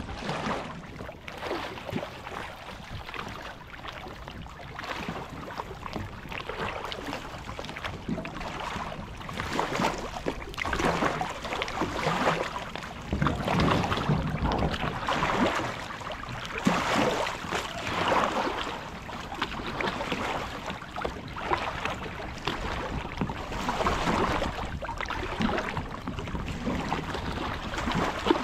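Water sloshing and splashing against the hull of a small wooden fishing boat in irregular surges, with wind noise on the microphone.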